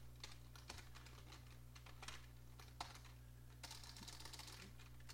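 Faint computer keyboard typing: irregular key clicks, with a quicker run of keystrokes about three and a half seconds in, over a steady low hum.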